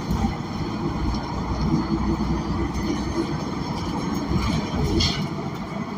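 Interior running noise of a 2021 Gillig BRT Plus transit bus with a Cummins Westport L9N natural-gas engine: a steady low engine and road rumble heard from inside the cabin, with no HVAC running.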